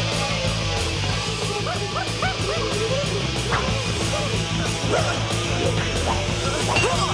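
Driving rock fight music with steady bass, overlaid by many short, arching yelping cries.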